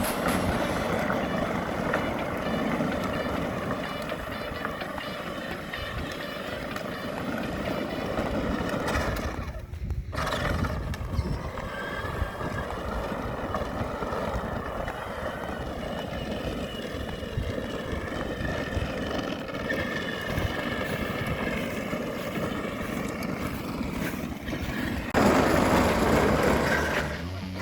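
Power Wheels ride-on toy car driven by a DeWalt 18-volt battery converter: its electric drive motors whine and its hard plastic wheels rumble over pavement. There is a brief break about ten seconds in and a louder stretch near the end.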